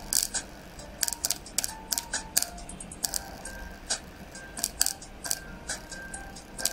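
Background music: sharp clicking percussion with short high notes that change pitch.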